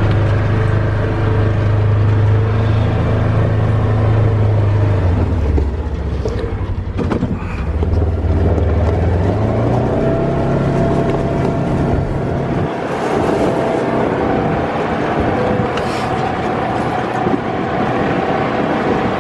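A motor vehicle engine catches just before and runs loud and steady, its pitch dropping and rising in steps a few times, as with revving or gear changes, then holding higher.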